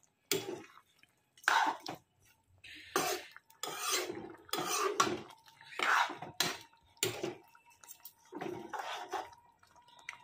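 A metal spatula stirring curry in a metal kadhai, scraping and clinking against the pan in an irregular series of strokes about once a second.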